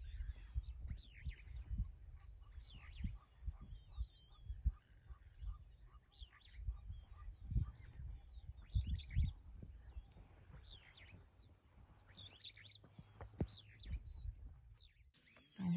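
Wild birds chirping and calling again and again in short sweeping notes, over an irregular low rumble with soft thumps.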